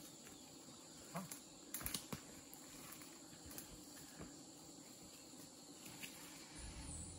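Faint forest ambience with insects, broken by a few short clicks and rustles about one to two seconds in, from feet moving through dry leaves and undergrowth.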